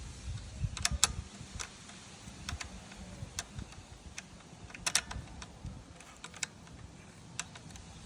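Irregular sharp clicks and taps of small metal parts and a hand tool as Torx bolts are fitted and started by hand into a motorcycle brake pedal mount, over low handling rumble; the loudest clicks come about a second in and again about five seconds in.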